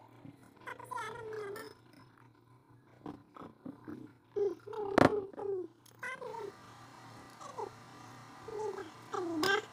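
Eating sounds close to the microphone: soft mouth noises and short hummed "mm" murmurs as two people eat soup with spoons from stainless steel bowls. A sharp clink about five seconds in, the loudest sound, and another near the end.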